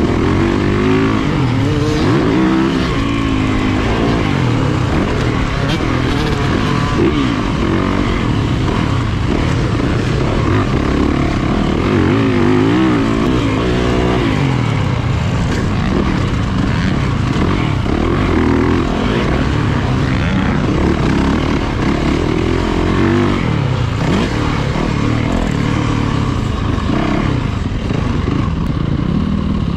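Yamaha two-stroke dirt bike engine being ridden hard, its pitch rising and falling every second or two as it is throttled up and shifted, easing off slightly near the end.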